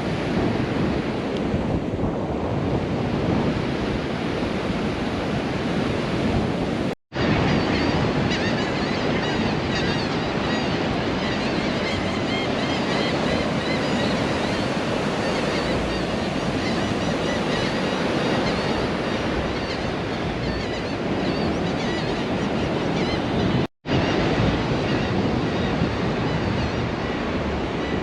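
Ocean surf breaking steadily on a beach, with strong wind buffeting the microphone. The sound drops out abruptly twice, for a split second each time.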